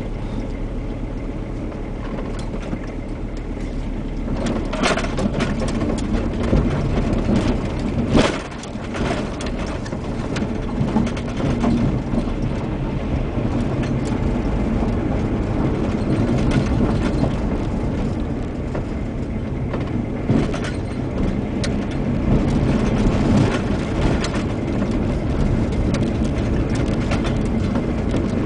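Car engine and tyre noise heard from inside the cabin while driving, steady throughout, with a couple of knocks about five and eight seconds in.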